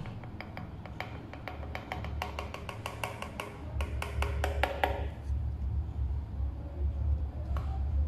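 Coffee scoop tapped again and again against the rim of a metal espresso portafilter basket to knock out the grounds, a quick run of sharp, lightly ringing clicks that speeds up and stops about five seconds in.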